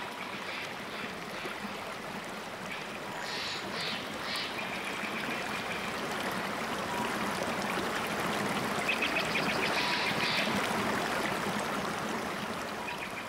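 Stream water rushing over rocks, a steady rush that swells slightly toward the middle. A few short high chirps sit over it, a little after three seconds in and again near ten seconds.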